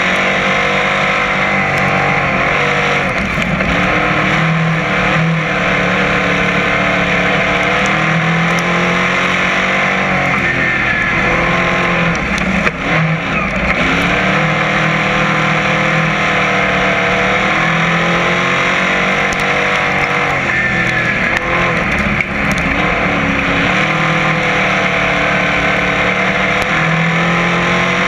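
Dirt-track crate modified's crate V8 engine running hard under race load, heard from inside the cockpit; its pitch repeatedly falls away and climbs again every several seconds as the car goes off and back on the throttle through the turns.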